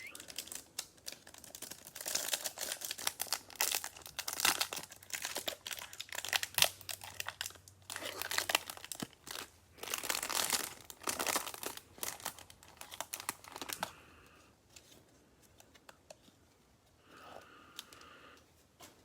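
Plastic trading-card pack wrapper being torn open and crinkled, with the cards rustling as they are handled; the crinkling dies down about fourteen seconds in.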